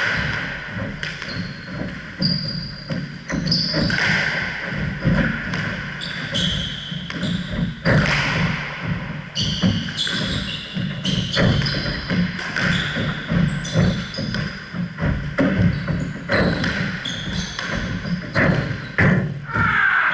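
A squash rally: the ball smacks against the racket strings and the court walls again and again, echoing in the hall, while the players' shoes squeak in short high chirps on the wooden floor.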